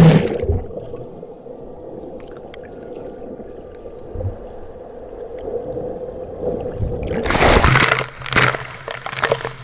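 Water heard with the microphone submerged in a waterfall pool. A splash goes under at the start, then comes a muffled underwater rumble with a steady hum for about six seconds. Near the end it breaks the surface with a splash and the rush of falling water returns.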